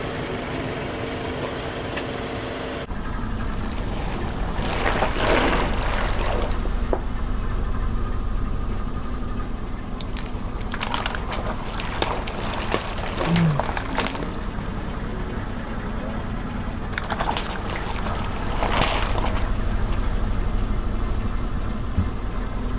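A car's engine rumbling low as its tyres roll over and crush objects, giving three spells of crackling and squelching crunches.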